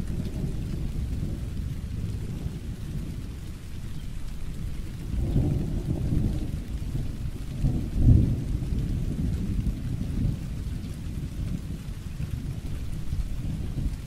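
Thunderstorm: low thunder rumbling under steady rain, swelling about five seconds in and peaking in a louder roll about eight seconds in.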